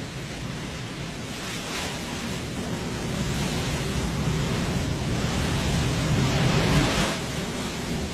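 Sea surf washing onto a beach: a steady rush of waves that swells over several seconds and falls away sharply about seven seconds in.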